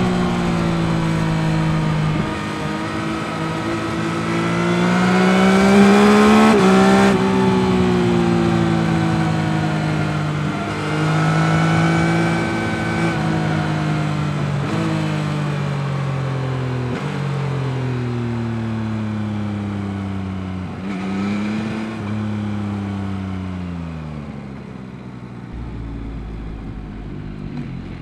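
2021 Yamaha MT-09's 890 cc CP3 inline-three engine under riding load: the pitch climbs as it accelerates, drops suddenly at each gear change, and climbs again over and over. Near the end it rolls off and runs at a lower, steadier pitch.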